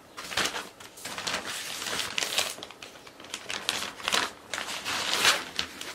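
Thin plastic packaging bag crinkling and rustling in irregular bursts as it is handled and pulled open.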